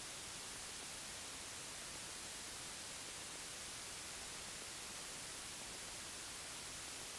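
Steady, even static hiss, with no engine note or propeller beat standing out.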